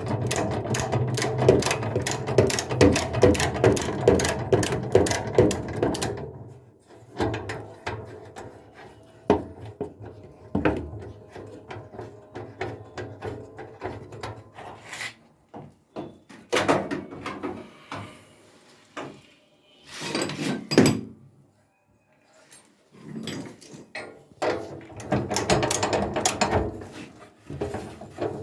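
Hand tool work on a washing machine being stripped down: a ratchet wrench clicking rapidly for the first few seconds, then scattered knocks and clatter of parts being handled, with rapid clicking again near the end.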